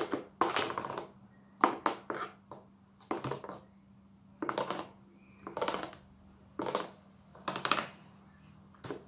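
Metal spoon scraping and clinking against the bowl of a small food chopper while stirring a wet, blended mixture. Short strokes come about once a second.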